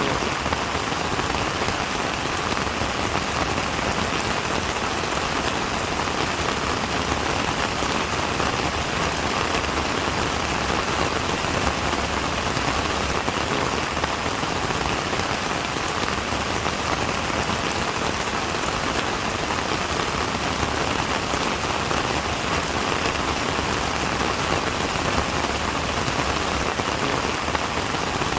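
Steady rain falling on a surface, a dense even patter of raindrops.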